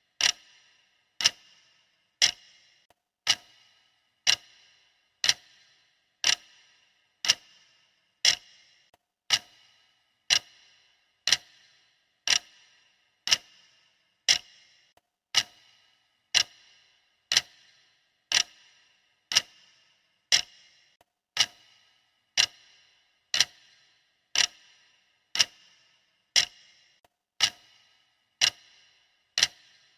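Clock ticking steadily, one sharp tick about every second with a brief ringing decay.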